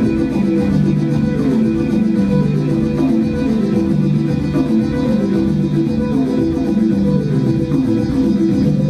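Live instrumental music from a duo: a repeating pattern of short, plucked-sounding low notes over steady held tones, with no singing.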